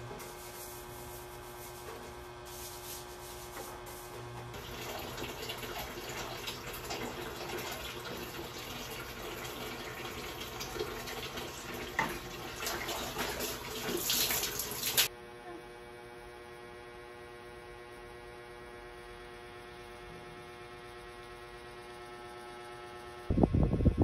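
Water running and splashing in a small tiled bathroom being cleaned, growing louder and cutting off abruptly about fifteen seconds in, with a low steady hum before and after it. A louder, uneven noise starts suddenly near the end.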